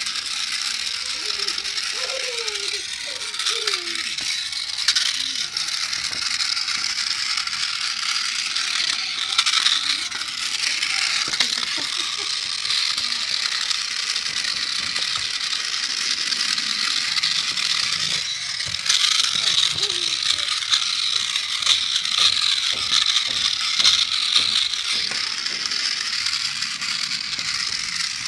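A radio-controlled toy tank's small electric drive motors and plastic gears running, a steady high whirring with a fast rattle, louder for a while around the middle and again near the end.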